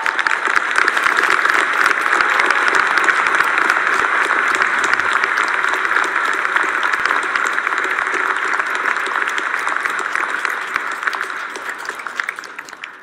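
Large audience applauding steadily, a dense mass of many hands clapping, fading out over the last couple of seconds.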